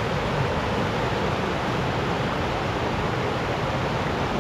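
Steady rushing of a fast mountain creek running over rocks and small rapids.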